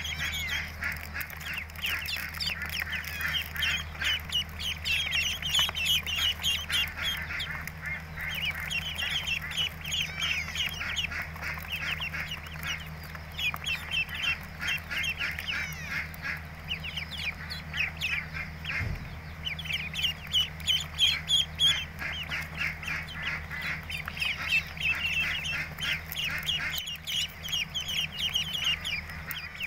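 A crowd of ducklings peeping continuously: many rapid, high, overlapping chirps. A steady low hum sits underneath, and there is one brief low thump a little past halfway.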